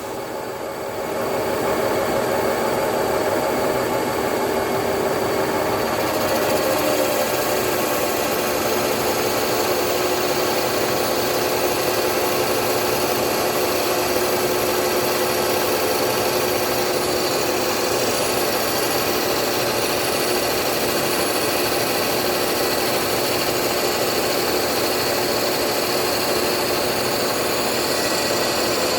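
Special-purpose CNC lathe running, a steady mechanical whir with a broad hiss that comes up about a second in and then holds even.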